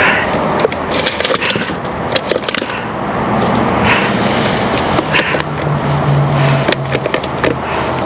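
Rummaging through dumpster contents with a reach grabber tool: plastic bags rustling and crinkling, with many short clacks and knocks as bottles and boxes are pushed about, over a steady low rumble.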